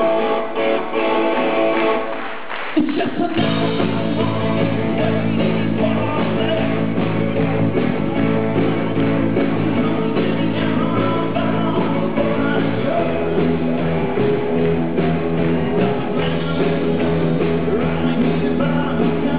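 Live rock band playing, led by electric guitars: a held guitar chord at first, then the full band with bass comes in about three seconds in, with singing over it.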